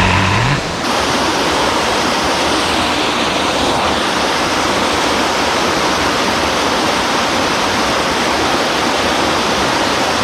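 Steady, loud rushing of a mountain stream's water, an even unbroken noise.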